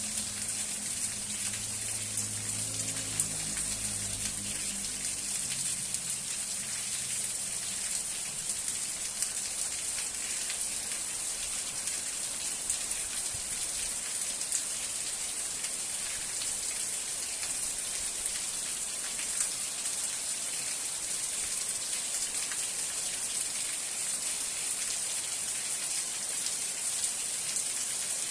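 Steady rain, a dense even hiss with scattered tiny drop ticks. A faint low rumble sits under it for the first few seconds, then fades out.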